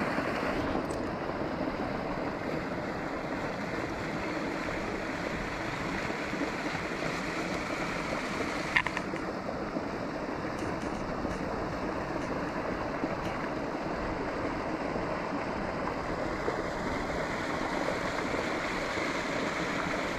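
Steady rush of a small creek's water flowing over rocks, with one short click about nine seconds in.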